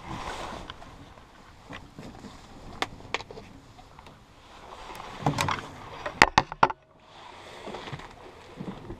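Rustling and handling noise from a handheld action camera being moved about, with scattered sharp clicks and a burst of loud knocks about six seconds in as the camera is set down on a table. After that the low handling rumble stops and only a soft steady noise is left.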